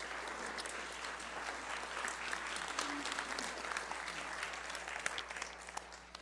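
A church congregation applauding, a dense patter of many hands clapping that dies away near the end.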